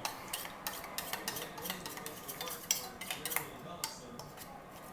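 A spoon stirring a sauce, clinking and scraping against the side of the pot in quick, irregular taps.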